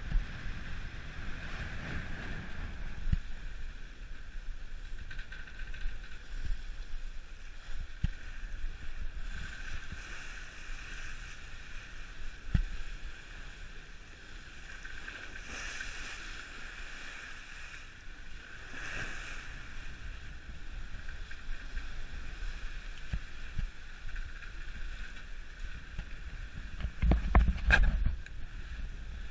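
Wind buffeting the microphone over the rush of seas along the hull of a schooner under sail, with a few short knocks and a louder buffeting burst near the end.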